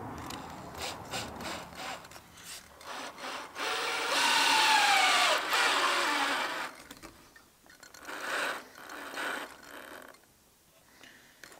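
Cordless drill-driver driving a screw through a casement-stay pin plate into the timber frame. The motor whine falls in pitch over about three seconds as the screw bites and tightens, and the driver runs again briefly a couple of seconds later. Light clicks of handling come before it.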